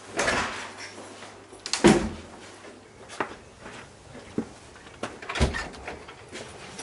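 A house door being opened and shut, with a run of knocks and thuds, the heaviest about two seconds in and another strong one about five and a half seconds in, and lighter knocks between.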